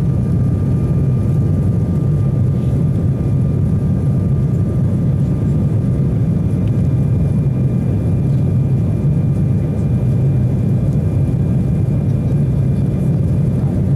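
Inside the cabin of an Embraer 195 jet climbing after take-off: the steady low roar of the turbofan engines and airflow, with a faint steady whine above it.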